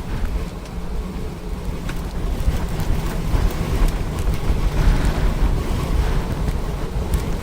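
Strong wind buffeting the microphone in a storm: a steady, dense low rush of noise with a few faint clicks.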